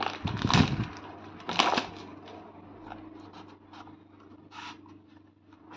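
Cardboard box tray being slid out of its sleeve by a tab, with plastic wrap rustling: a few loud scraping strokes in the first two seconds, then lighter scratches and clicks.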